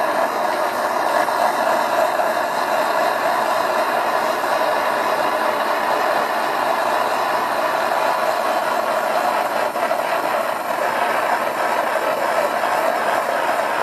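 Hose-fed propane torch burning steadily, a continuous hissing roar of the flame that holds the same level throughout.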